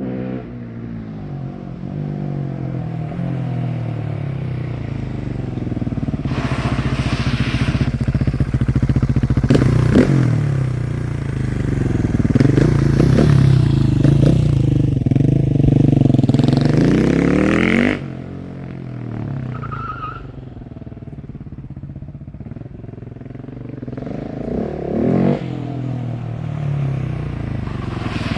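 KTM 690 SMC R's single-cylinder engine under way, breathing through a de-catted LeoVince exhaust with a modified air filter: it pulls up through the revs, loudest about halfway through, then drops off sharply as the throttle is shut, runs quieter for a few seconds and builds again near the end.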